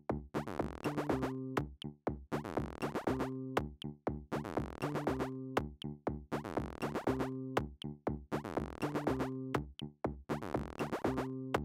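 Background electronic music with a steady drum-machine beat and a repeating synth bass line.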